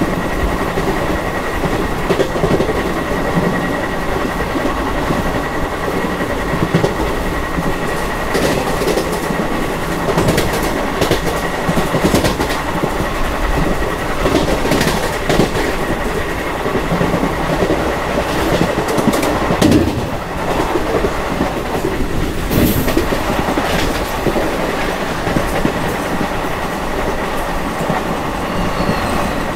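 Indian Railways express train running at speed, heard from inside a passenger coach: a steady rumble of wheels on rails with irregular clicks and knocks over the rail joints.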